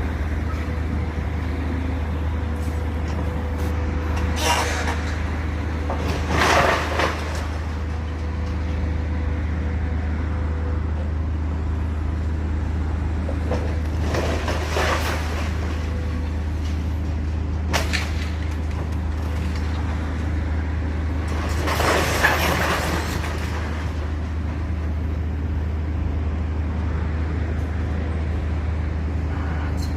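A steady low engine rumble, with several brief rushing, hissing surges over it. The loudest surges come about six seconds in and near twenty-two seconds in.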